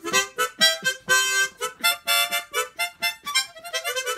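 Harmonica played as a dance tune: a quick series of short notes and chords, a few held a little longer.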